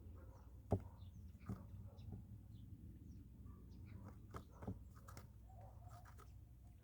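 Birds feeding: faint, irregular pecking taps, the loudest about a second in, with a few short, soft chirps.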